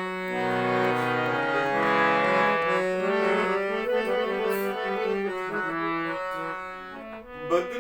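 Instrumental interlude of a ghazal-style nazm: a melody of long held notes on a sustaining wind or reed instrument, with a single sharp percussive stroke near the end.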